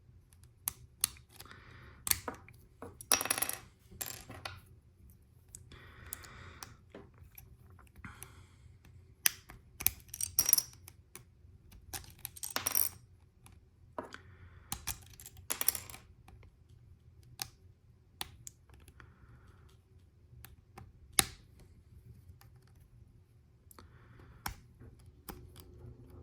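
LEGO bricks being handled and pressed together: irregular sharp plastic clicks and short clattering rattles of loose pieces, a few of them louder snaps.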